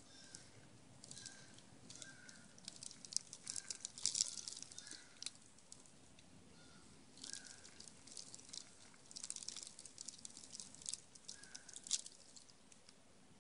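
Eastern gray squirrel crunching seed close to the microphone: irregular bursts of crisp crackling clicks. A faint short chirp repeats about once a second underneath.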